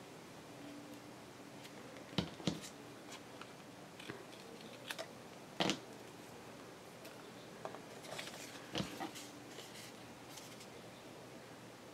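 Scissors cutting paper: a handful of scattered sharp snips and clicks, with a quicker cluster of them near the end.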